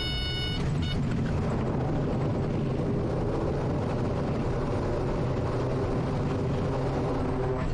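Quest Kodiak's PT6A turboprop engine and propeller running loud and steady through the landing rollout, with the propeller in full reverse to slow the aircraft on a slippery grass strip.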